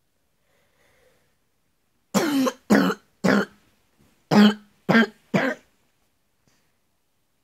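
A man coughing: two fits of three hard, chesty coughs, one after the other with a short pause between.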